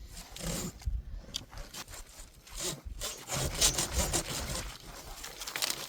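Old dry branches being cut for firewood: wood rasping and scraping in uneven repeated strokes, quicker in the second half.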